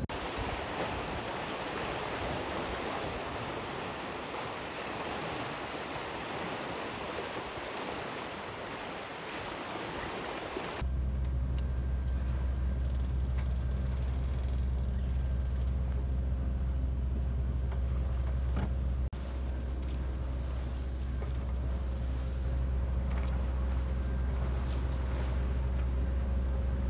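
Wind and water rushing past a yacht under way, then, after a sudden change about eleven seconds in, the steady low drone of the yacht's engine as she motors with her sails down, with the sea washing along the hull.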